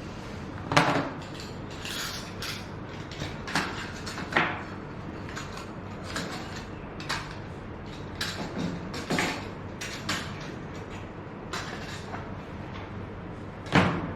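Steady hiss from a fetal Doppler's speaker, with irregular knocks and scrapes such as the probe makes when it is handled or moved. The loudest knocks come about a second in and near the end. No even heartbeat rhythm is heard.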